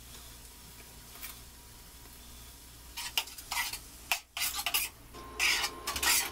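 Chicken in barbecue sauce sizzling faintly in a frying pan, then a long-handled spoon stirring it, scraping and clacking against the pan. The stirring starts about three seconds in and gets louder and busier near the end.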